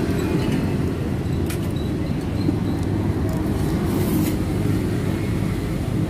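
Steady low rumble of road traffic, with a couple of faint clinks of a metal spoon on a ceramic plate.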